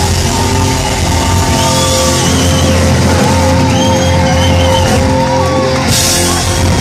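Heavy metal band playing live at high volume, heard from within the audience: distorted electric guitars and drums under a held note, with a wavering high melody line in the middle. A cymbal crash comes near the end.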